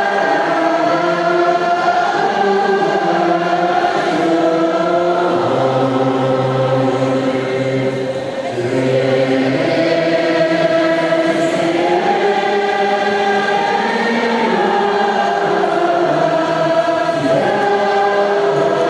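A group of voices chanting together in a slow, drawn-out melody, each note held and then stepping to the next: a Tibetan Buddhist devotional chant. The loudness dips briefly about eight seconds in.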